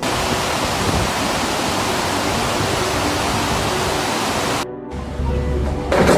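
Loud, steady rush of water pouring through a dam, cutting off suddenly about four and a half seconds in. A low hum with a few knocks follows near the end.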